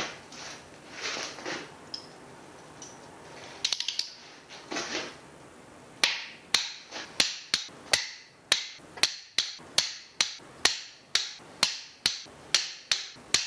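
Ratchet torque wrench working the cylinder head nuts of a Bedford RL engine. Scuffing handling noise and a quick clatter of ratchet clicks come first; from about six seconds in there is a steady run of sharp metallic clicks, about two a second, each ringing briefly, as the wrench is ratcheted round.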